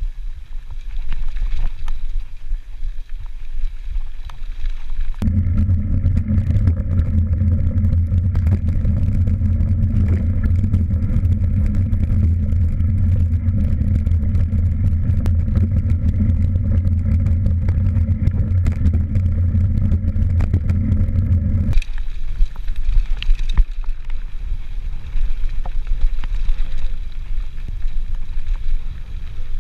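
Mountain bike rolling down a dirt singletrack, heard through an action camera: wind buffeting the microphone, tyres on dirt, and rattles and ticks from the bike. From about five seconds in, a heavy, steady low rumble takes over. It drops back to the lighter wind and rattle noise a little over twenty seconds in.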